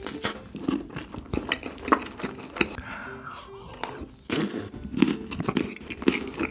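Close-up eating sounds of chocolate being bitten and chewed, with many sharp, irregular crunchy clicks.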